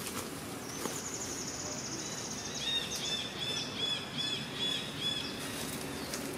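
A bird calling over outdoor background noise: a high, fast buzzy trill, then a run of about seven short rising-and-falling whistled notes, two or three a second.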